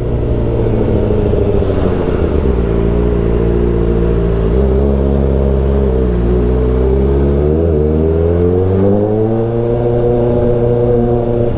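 Kawasaki Ninja ZX-4RR's inline-four engine running on the move. Its pitch sinks over the first few seconds, then climbs steadily again from about eight seconds in.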